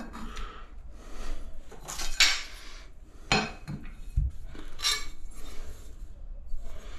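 Ceramic subway tiles and tiling tools being handled as tiles are set on a wall: several separate hard clinks and short scrapes of tile against tile and trowel.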